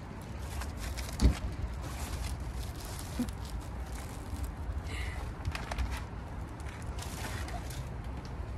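Steady low outdoor rumble with scattered clicks and rustling, and one sharp heavy thump about a second in.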